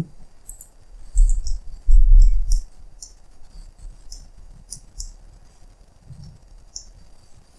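Computer mouse clicks and scroll-wheel ticks: a scattering of short, sharp clicks. Two low, dull thumps about a second and two seconds in are the loudest sounds.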